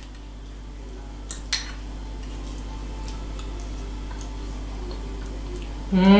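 A fork clicks lightly twice against a ceramic plate about a second and a half in, with a few fainter ticks, over a steady low hum. Near the end comes a short, rising-and-falling voiced 'mmm' of a woman savouring a mouthful.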